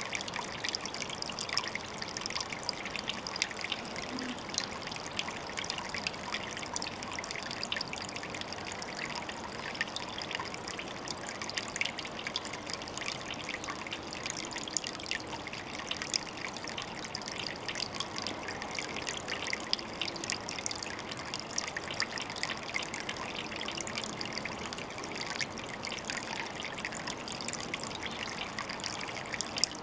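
Water trickling steadily, a constant run of tiny splashes.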